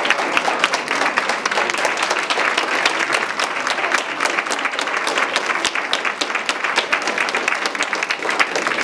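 Audience applauding: many people clapping at once in a steady, dense patter.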